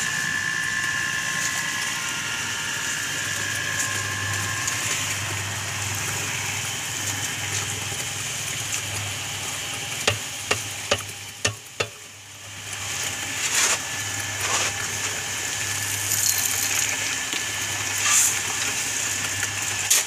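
Homemade oil-drum concrete mixer running, its electric motor and gearbox humming steadily while sand and gravel tumble and hiss inside the turning drum. A few sharp knocks come near the middle as a shovel scrapes and loads material into the drum.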